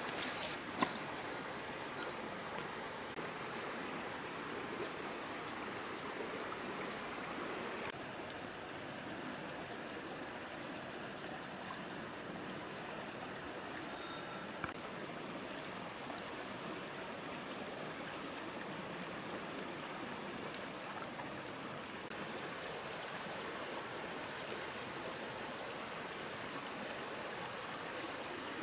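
Outdoor insect chorus: one insect keeps up a steady high-pitched drone that grows louder a few seconds in, while another chirps in short pulses about once a second. Under them is the even hiss of a shallow stream running over stones.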